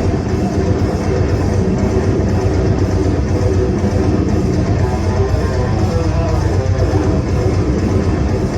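Rock band playing loud and live, with guitar and a drum kit.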